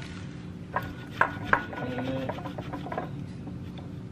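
A stainless box grater knocking against a ceramic bowl three times or so as it is set in place, then a block of soft, crumbly cheese rubbed against the grater's teeth.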